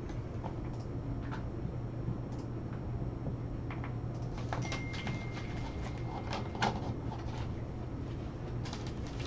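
A steady low electrical hum with scattered faint clicks and knocks. Around the middle there is a cluster of sharper clicks, with a thin high steady tone lasting a couple of seconds.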